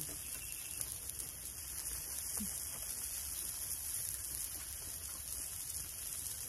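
Meat sizzling on foil in a kettle grill: a steady crackling hiss.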